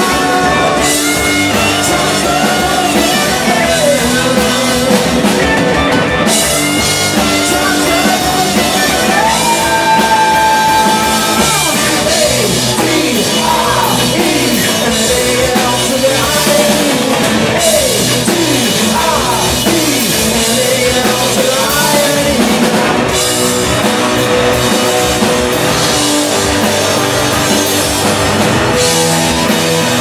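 Indie rock band playing live: electric guitars, bass and a drum kit with cymbals, with a singer's voice over them.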